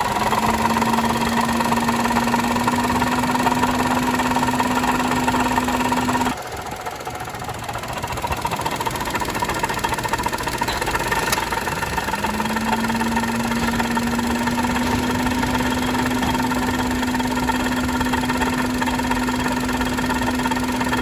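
Daihatsu KF 660 cc three-cylinder engine running with a rattling, clattering noise over a steady hum, the sign of a failing water pump. The hum breaks off abruptly about six seconds in, returns about halfway through and falls in pitch at the end.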